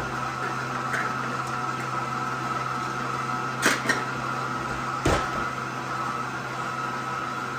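Electric stand mixer's motor running with a steady hum. A couple of sharp clacks and then a heavier knock come about midway, kitchen utensils handled on the counter.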